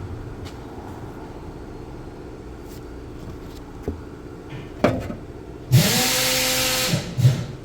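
A power tool runs in one loud burst of about a second near the end, a hiss with a rising whine as it spins up, while the new muffler's fittings are fastened. A few metal knocks come before and after it.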